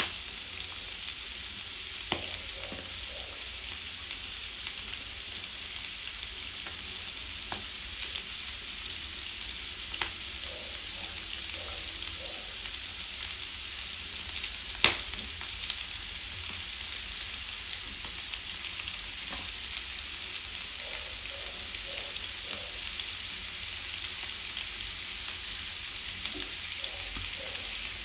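Pieces of bok choy sizzling in hot oil in a nonstick frying pan: a steady high hiss with scattered sharp pops, one louder pop about halfway through.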